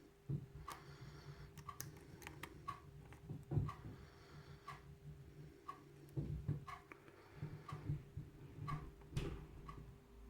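Medium hook pick tapping and lifting the pin stacks of an ASSA lock cylinder under light tension: a string of small, sharp, irregular clicks, over a faint steady hum.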